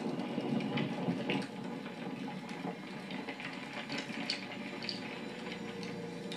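Rain on a car's windshield and roof: a steady wash of water with scattered small taps.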